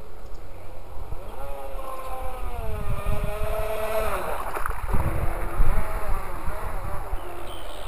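Radio-controlled speedboat's motor whining as it runs past at speed, the pitch rising and then dropping as it goes by. Low rumbling buffeting on the microphone is loudest about five seconds in.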